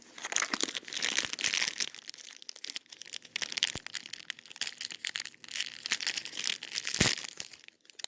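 Plastic candy wrapper crinkling and crackling as it is handled and pulled at to tear it open, in irregular bursts, with a sharp click about seven seconds in.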